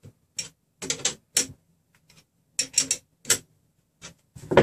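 Open-end wrench clicking and clacking against the nuts on a RepRap Prusa Mendel's threaded-rod frame as they are tightened. A string of short, uneven metal clicks, loudest near the end.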